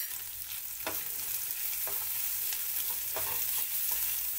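Onions, tomato and ground turmeric and chili sizzling in hot oil in a ceramic-coated frying pan, stirred with a silicone spatula that scrapes the pan a few times.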